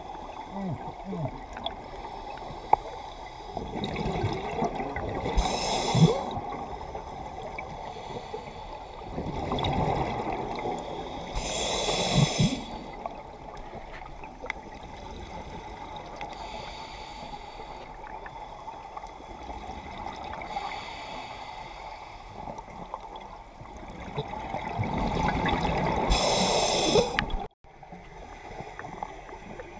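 Scuba diver breathing through a regulator underwater, heard through the camera housing: slow hissing inhales and three loud bubbling exhales, the last the longest. The sound cuts off suddenly near the end.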